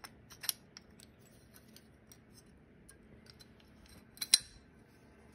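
Light metal clicks and taps of a throttle slide and slide-carburetor body being handled and fitted together: a few sharp clicks at the start, scattered faint ticks, and a louder pair of clicks about four seconds in.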